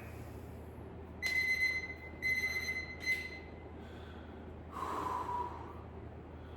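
A man's heavy breathing from exertion during ab exercises: three short, whistling exhales in quick succession starting about a second in, then a longer breath near the fifth second.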